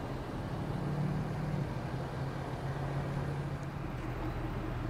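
Steady low drone of vehicle engines from traffic, with no sharp events and a slight swell about a second in.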